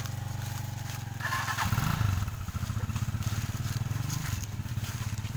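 Small motorcycle engine idling with an even pulse, rising louder briefly about two seconds in.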